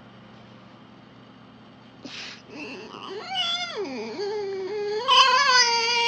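Red fox giving a long, wavering whine: a short breathy hiss about two seconds in, then a drawn-out call that rises and falls in pitch and grows louder toward the end.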